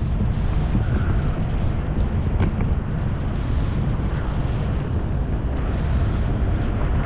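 Wind rushing over the microphone of a skydiver's camera: a loud, steady, low rumble of air noise with no distinct tones.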